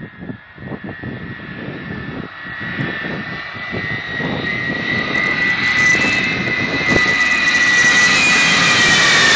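Four-engine military jet transport on a low approach for a touch-and-go, passing overhead: jet engine roar with a high whine, growing steadily louder. Near the end the whine starts to drop in pitch as the plane goes over.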